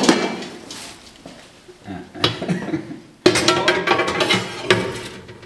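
Large stainless-steel cooking pot knocking and clinking against the metal cavity of a built-in microwave oven as it is slid inside, with a sudden loud knock a little past three seconds.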